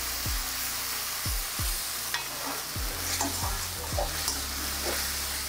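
Onion and ginger-garlic masala sizzling in hot oil in an aluminium kadhai, stirred with a perforated metal spatula in repeated strokes across the pan.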